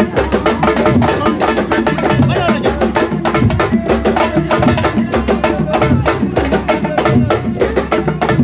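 Fast hand drumming on sabar drums, a dense run of sharp strokes, with voices singing or chanting over it: the drum music that accompanies Senegalese wrestling.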